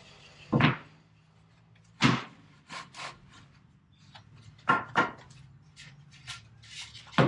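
Several separate sharp knocks and thuds, with lighter clicks and rubbing between them, as material or tools are handled.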